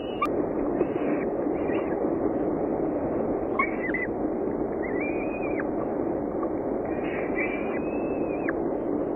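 Downy falcon chicks begging while being fed, giving thin, high, drawn-out calls: a few short ones and a couple of longer arching ones. A steady low rushing noise runs underneath.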